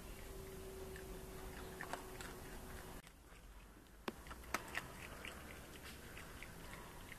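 A pet raccoon chewing and biting food: faint, irregular crunches and clicks, with a few sharper clicks about four to five seconds in. A faint steady hum sounds for the first three seconds.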